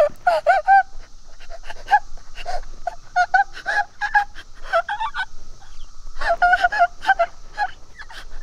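A woman crying out in pain in short, repeated, high-pitched shrieks and gasps, coming in irregular clusters with brief pauses between them.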